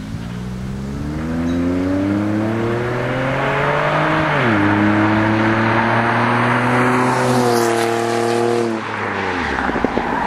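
A 2007 Pontiac G6 GT's 3.5-litre V6 through a Classic Performance GT-R aftermarket exhaust, accelerating hard: the engine note climbs, drops sharply at an upshift about four seconds in, climbs again in the next gear, and falls away near the end.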